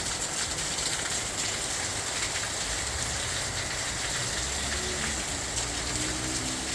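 Heavy rain pouring down steadily, an even dense hiss of rain on surfaces with a low rumble underneath.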